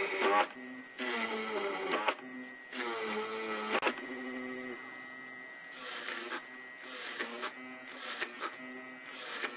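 Homemade drill press driven by a 775 DC motor, running with a whining hum. Its pitch rises and falls in the first few seconds, then settles into a steadier pattern.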